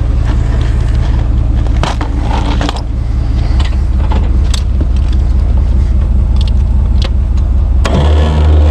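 Engine idling steadily, with scattered clicks and knocks of handling over it; about eight seconds in a louder, deeper hum comes in.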